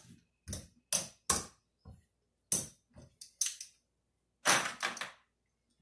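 Casino chips clacking together as they are picked up off the craps layout and stacked: a string of separate sharp clicks, with a quicker run of clacks near the end.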